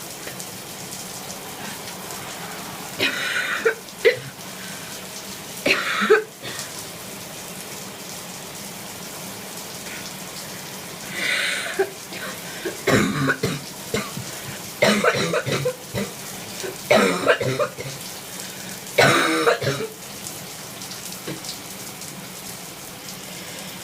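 A person coughing, hawking and spitting in repeated short bouts over the steady hiss of a running shower, bringing up phlegm loosened by the shower's steam.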